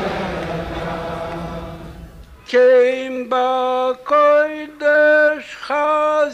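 A large crowd of Hasidic men singing together fades down. About two and a half seconds in, a clean solo male voice takes over, singing a slow melody in long held notes.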